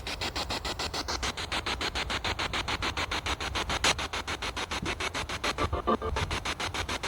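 Spirit box sweeping through radio stations: a steady hiss of static chopped into rapid, evenly spaced pulses, several a second, with a few brief tonal fragments about six seconds in.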